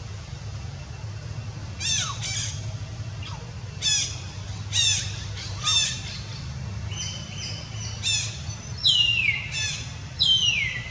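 A series of shrill animal calls: short squeals that drop steeply in pitch, coming in quick groups, with two longer falling squeals near the end, over a steady low background hum.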